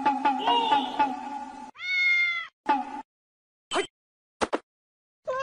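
A domestic cat meowing: one drawn-out meow about two seconds in, then a short mew and a couple of brief chirps with silent gaps between them, and another meow near the end.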